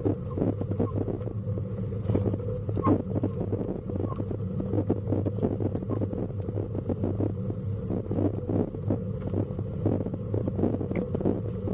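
A pet stroller rolling over a paved road, its wheels and frame rattling with many rapid irregular clicks over a steady low hum.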